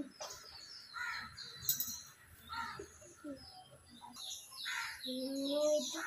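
Birds chirping and calling in the background, a scatter of short high chirps.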